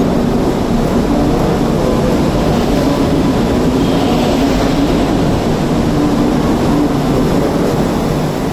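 Mumbai AC EMU suburban electric train rolling along a station platform at close range: a steady, unbroken rumble of wheels and running gear with a faint hum.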